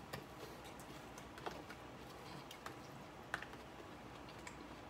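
Faint, scattered clicks and light taps from someone eating a salad, about a dozen irregular ticks over quiet room hiss.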